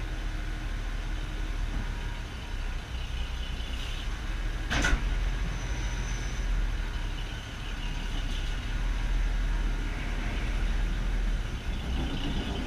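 1945 CMP HUP military truck with a steady low rumble, faint high-pitched sounds coming and going, and one sharp click about five seconds in. This is the strange noise the owner has not yet identified, which appears only after the vehicle has stood a long time in very cold weather.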